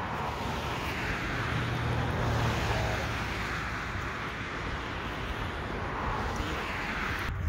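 Road traffic: a passing car's tyre and engine noise swells to a peak about two seconds in and fades, and a second vehicle swells past around six seconds in.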